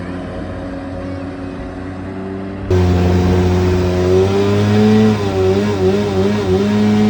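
Yamaha 650 two-stroke twin engine of a jet boat running, its revs wavering up and down. It gets abruptly louder about two and a half seconds in.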